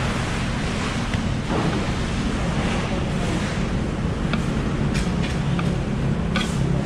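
Steady rushing background noise with a low hum, broken in the second half by a few light, sharp clicks as a long knife works along a yellowfin tuna loin on a wooden table.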